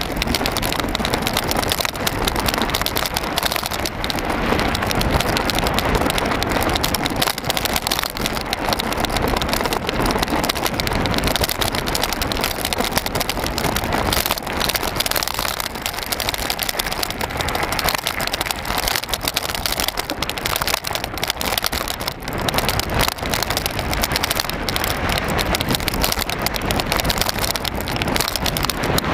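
Mountain bike rolling over a rough farm track of gravel and broken tarmac, heard from an onboard camera: a dense, steady crackling rattle of the tyres on the loose surface.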